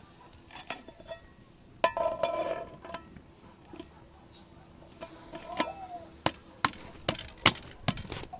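Metal cookware clinking and knocking: a steel pot and its lid handled on a wood-fire hearth, with a clank that rings briefly about two seconds in and a run of sharp knocks near the end.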